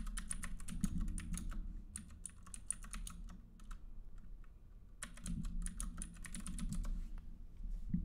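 Typing on a computer keyboard: a quick run of key clicks for about three seconds, a short pause, then a second run.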